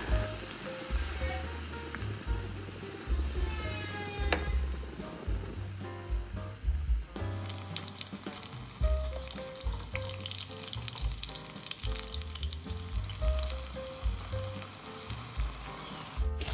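Batter-coated hadga (Sesbania grandiflora) flower fritters deep-frying in hot oil, sizzling and bubbling steadily. Light background music plays underneath.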